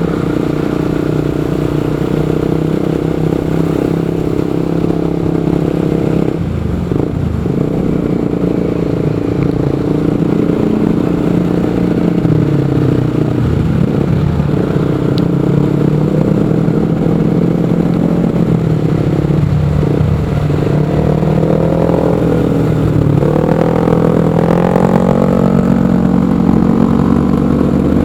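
Motorcycle engine running under way, its pitch dipping and rising as the throttle is eased and opened. It drops briefly around a quarter and two-thirds of the way in, then climbs near the end.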